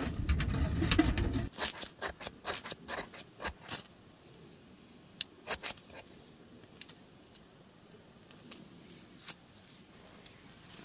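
A low rumbling noise cuts off about a second and a half in. A quick run of sharp clicks and taps follows, dense for a couple of seconds, then thinning to scattered ticks.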